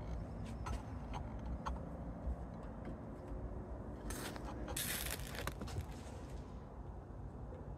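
Urea being added through a plastic funnel into a beaker of nitric acid solution to neutralise the excess acid: a few light clicks, then two short rushing hisses about four and five seconds in.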